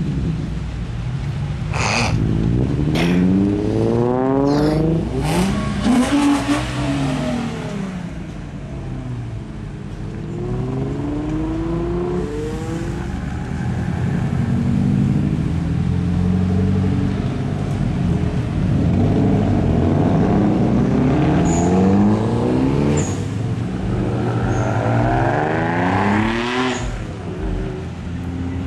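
A procession of sports cars, Nissan 350Zs among them, pulling away one after another past the listener. Each engine revs and rises in pitch as it accelerates by, with a few sharp pops in the first several seconds.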